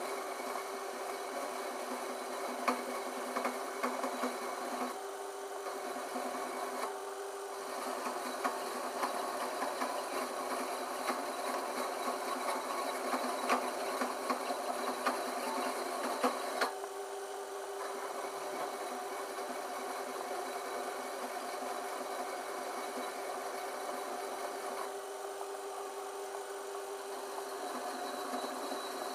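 Small metal lathe running with a steady tone while a flat hand file rasps against the spinning copper pipe. The scratchy rasping is densest through the first half and eases off about halfway, leaving mostly the lathe running.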